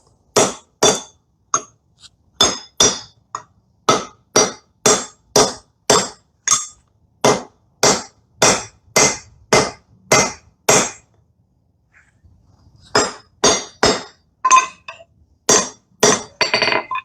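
Hand hammer striking a hot railroad spike on an anvil, forging it into a bearded axe head: an even run of ringing blows about two a second, a pause of about two seconds near the middle, then more blows.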